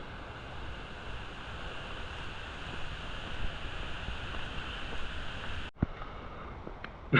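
Steady rush of a waterfall and its stream. It breaks off suddenly near the end, leaving a quieter steady background.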